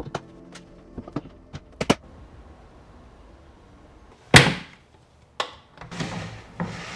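A few light clicks and knocks, then one loud sharp thunk about four and a half seconds in, followed by a short cut to silence, another knock, and a faint hiss.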